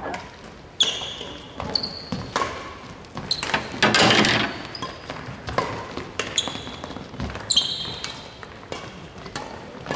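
Badminton being played on a wooden hall floor: sharp racket-on-shuttlecock hits and footsteps, with several short, high-pitched shoe squeaks on the court. About four seconds in there is a louder brushing noise as a player moves right by.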